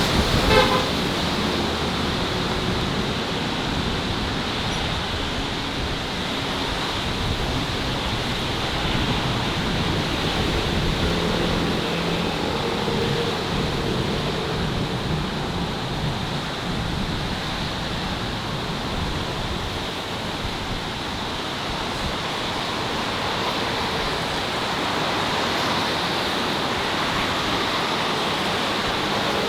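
Steady city street ambience: a continuous, even rush of passing traffic with faint low hum.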